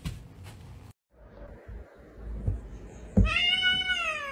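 A tabby-and-white domestic cat gives one long meow, starting about three seconds in, that rises a little in pitch and then falls. A short thump comes just before the meow.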